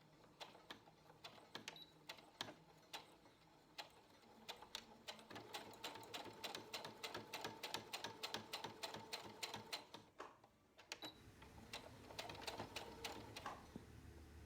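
Domestic sewing machine stitching a seam through felt, its needle ticking quietly in a quick even rhythm that speeds up after about four seconds, stops briefly about ten seconds in, then runs on more softly.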